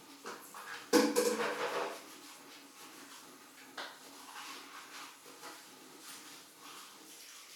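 A great tit landing on a plastic tube bird feeder: a sharp knock with a short ringing tail about a second in, then a fainter single tap a few seconds later.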